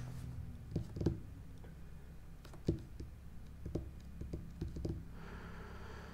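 Scattered computer keyboard clicks, a handful of separate keystrokes rather than continuous typing, over a low steady hum. A faint rubbing hiss starts about five seconds in.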